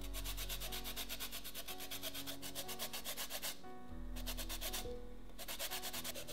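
A lemon being zested on a fine stainless steel rasp grater: rapid scraping strokes of the peel across the grater's teeth. One long run of strokes is followed by two short bursts with brief pauses between.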